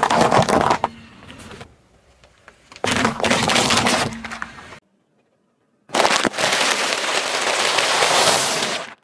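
Car tyre rolling over objects and crushing them in three separate bursts of cracking and crunching. First a short crunch of small white cubes, then another crackling crush about three seconds in. After a brief silence comes the longest and loudest one: a crinkling, crackling crunch of a plastic snack bag of crunchy pieces.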